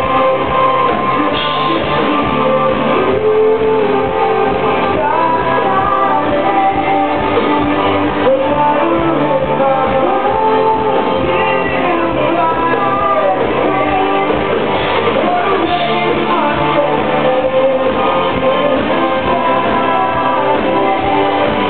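A rock band playing live, a singer's voice over electric guitars and keyboards, recorded from within the audience in a large hall.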